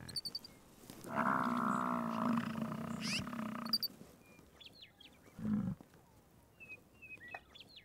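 American bison bull bellowing in the rut: one long, low roar of nearly three seconds, followed about two seconds later by a short low call. Faint high chirps come near the end.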